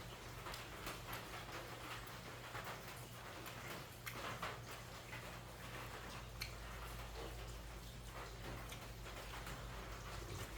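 Soft, irregular clicks and smacks of a person chewing and eating with the mouth close to the microphone, over a steady low hum.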